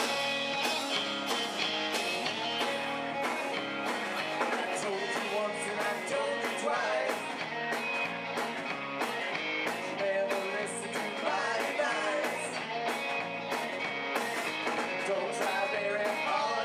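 Live rock band playing, with electric guitar, electric bass and a drum kit keeping a steady beat.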